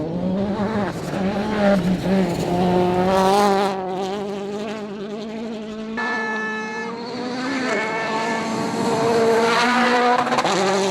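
Citroen DS3 WRC rally car's turbocharged four-cylinder engine revving, its pitch rising and falling. The sound changes abruptly about six seconds in.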